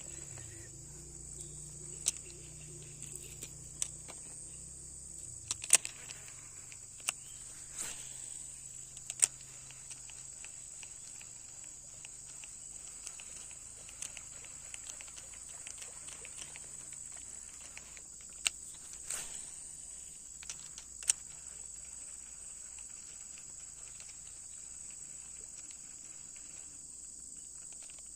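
Steady high-pitched chorus of insects such as crickets, with a scattered handful of short sharp clicks and knocks.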